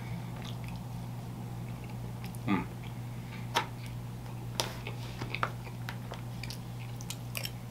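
Close-miked chewing of a bite of falafel, with a few short, sharp clicks and mouth sounds spread through it, over a steady low hum.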